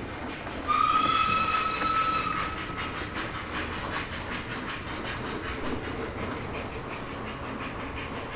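Steam locomotive whistle sounding once for about two seconds, about a second in, over a steady rhythmic chuffing of the engine running.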